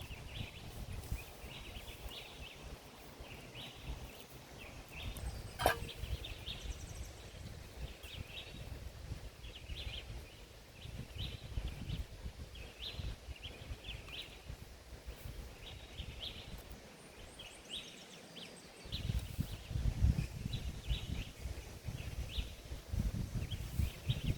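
Small birds chirping in short repeated calls, over a low rumbling noise that grows stronger in the last few seconds, with one sharp click about six seconds in.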